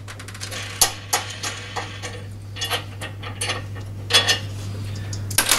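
Scattered light clicks and metallic clinks as a bolt, washer and plastic wing knob are unscrewed and taken off a lawn mower's handle frame, with a louder clatter about four seconds in.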